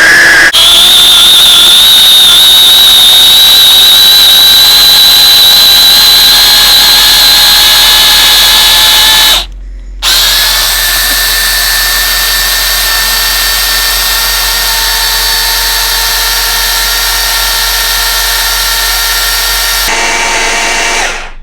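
Small household blender's motor running with a loud high whine that climbs slightly in pitch, cutting out for about half a second near the middle and then running again until just before the end. It is blending a seasoning mix with carrot in it, which the owner says makes it slow to blend.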